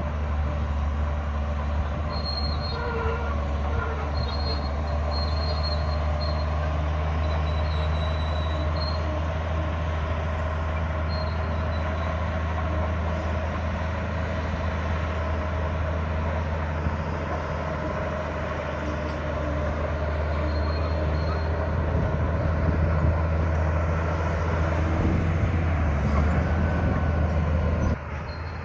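Komatsu crawler bulldozer working: its diesel engine runs with a steady low drone while the steel tracks squeal and clank as it pushes stone.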